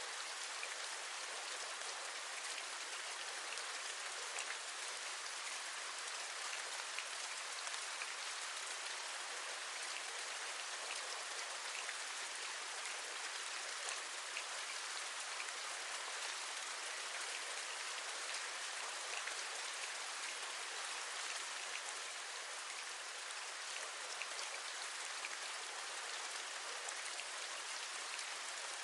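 Steady rain, a dense patter of many small drop ticks over an even hiss.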